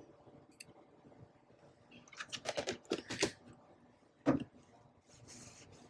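Light clicking and rattling of kitchen utensils being handled on a counter, in a quick cluster about two to three seconds in, then a single sharp knock about a second later.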